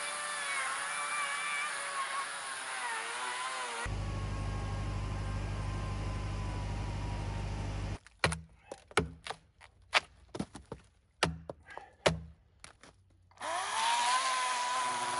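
Cordless electric chainsaw cutting into the thick bark of a Douglas fir log, its motor whine wavering under load, followed by a steady low hum. About 8 seconds in, a hatchet chops at the bark in a quick run of sharp blows, and near the end the cordless chainsaw starts cutting again.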